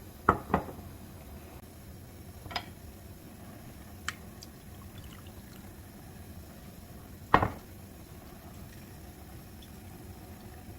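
A few sharp clinks and knocks of kitchenware being handled during cooking: two close together at the start, one a couple of seconds later, a faint one, then the loudest near the end, over a low steady background.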